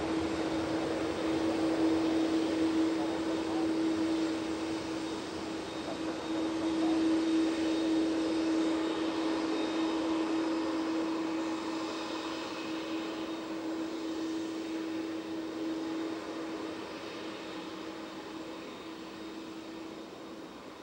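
Jet engines of an Airbus A330-200 running, a steady noise with a strong humming tone, slowly fading over the second half.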